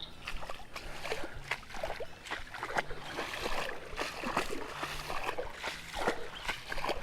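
Water splashing and sloshing in irregular strokes.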